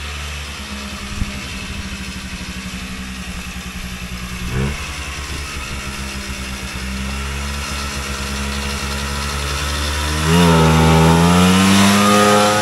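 Vintage Polaris Colt single-cylinder two-stroke snowmobile engine running under way, with a short rev about four and a half seconds in. About ten seconds in it revs up, much louder and rising in pitch, as the sled accelerates close by.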